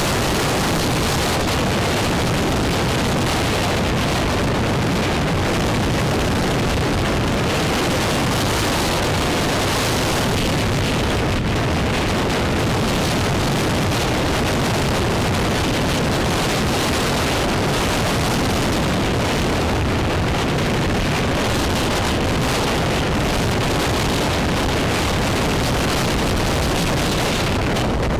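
Steady rushing wind noise on the microphone of a camera riding on a moving motorbike, with the road and vehicle noise of the ride underneath.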